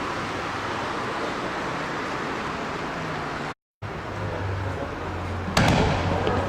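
Steady outdoor rumble at a fireworks display, cut off by a brief dropout a little past halfway, then a firework shell bursting loudly near the end.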